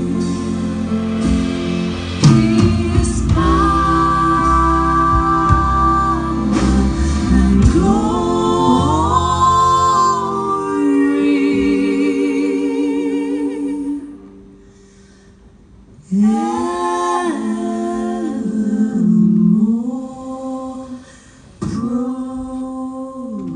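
Live female close-harmony vocal trio singing with a small band of guitar, accordion, drums and double bass. About ten seconds in the instruments drop out and the three voices carry on alone in long held harmonies, breaking off twice.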